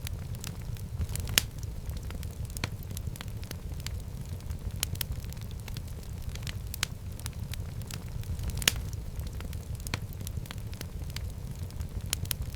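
Fire burning in a fireplace: a steady low rumble with irregular sharp crackles and pops, two of them louder, one about a second and a half in and one past the middle.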